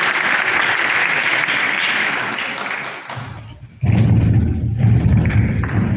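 Audience applauding, dying away about three seconds in; a loud, muffled low sound starts abruptly just before four seconds.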